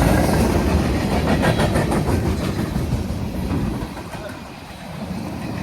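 Freight cars of a manifest train rolling past in a steady rumble, the wheels clicking over the rail joints. The sound eases briefly about four seconds in, then builds again.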